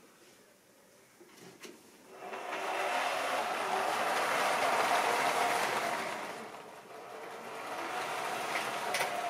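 OO-gauge model train starting off about two seconds in: the locomotive's electric motor runs with a steady whine, and the wheels rumble and rattle over the track as the train gathers pace. The sound dips briefly and then swells again.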